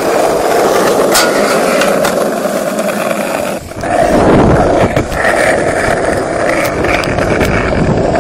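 Skateboard wheels rolling over pavement: a steady rolling rumble with a few light clicks, dipping briefly about three and a half seconds in.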